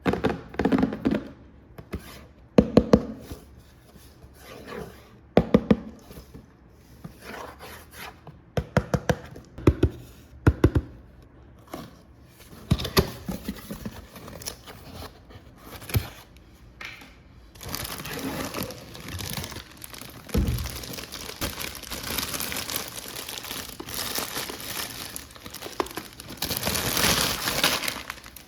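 RC car packaging being unpacked by hand. Scattered knocks and clicks of the box and parts being handled come first, then, from a bit past the middle, continuous crinkling and tearing of plastic wrapping.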